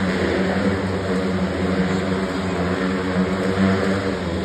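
Motorcycle engines running at steady high revs as the bikes loop inside a steel-mesh globe of death, a continuous even drone.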